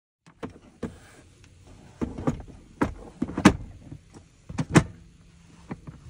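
Plastic clicks and knocks from an infant car seat being handled and fitted onto its base in a car's back seat: a scatter of sharp knocks, the loudest two about three and a half and nearly five seconds in.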